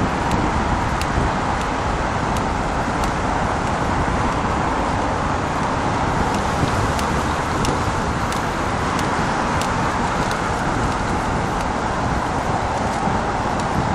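Steady road traffic noise from cars on a multi-lane city avenue, heard from a moving vehicle, an even rush with no sudden events.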